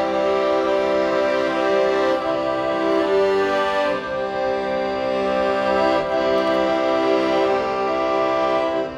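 Instrumental music: full held chords with many overtones, changing about every two seconds.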